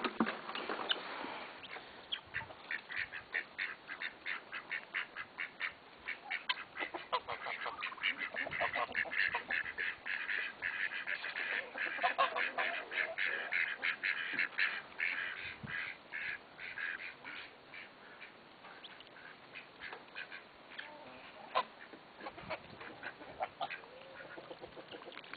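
Ducks quacking in long runs of quick, repeated calls, several birds at once, thinning out to scattered calls in the last third.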